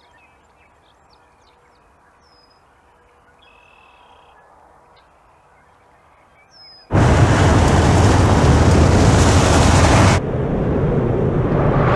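Quiet dusk ambience with a faint hum and a few faint high chirps, then about seven seconds in a sudden, loud rumbling boom that fills everything from deep lows to hiss and keeps going, easing slightly near ten seconds.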